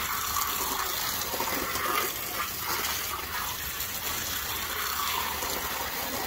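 Garden hose spraying a steady jet of water onto wet jeans and a wooden fence, a continuous splashing hiss.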